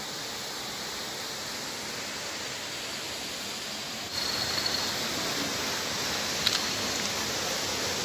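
Steady rushing of a clear-water stream, a little louder from about four seconds in, with a brief high note at that point and a single click later.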